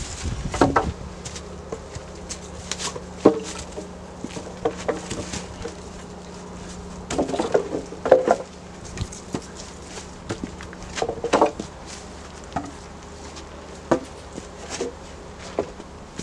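Wooden logs and cut poles knocking and clattering as they are lifted, dragged and set down on the forest floor, in irregular bursts that are busiest about halfway through and again later on. A steady low hum runs underneath.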